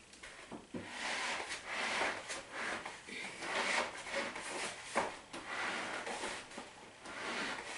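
Plastic glue bottles and other items rubbing and knocking together in a plastic bowl as a hand rummages through them, with a few sharper clicks.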